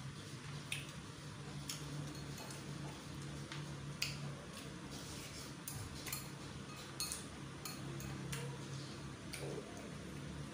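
Metal spoon clicking and scraping against a bowl of chicken noodle soup as it is eaten, in irregular light clinks, over a steady low hum.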